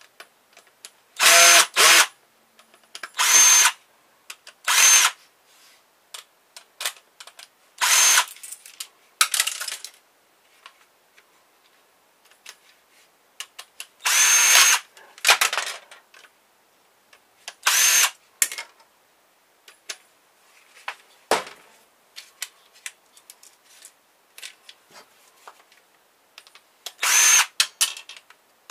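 Cordless power drill/driver running in about ten short bursts of a second or less, each with a brief high motor whine, backing screws out of a printer's plastic housing, with light clatter of plastic parts in between.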